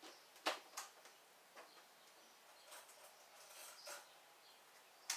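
Faint, scattered clicks and light knocks with a soft rustle about three and a half seconds in, from someone moving about off-camera.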